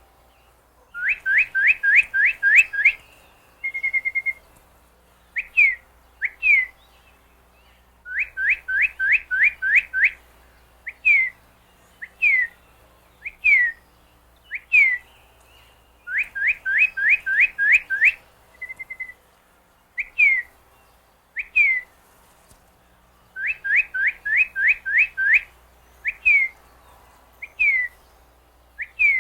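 Northern cardinal singing: the song comes four times, each a quick run of about seven rising whistled notes followed by slower, separate downslurred whistles, twice with a short steady note in between.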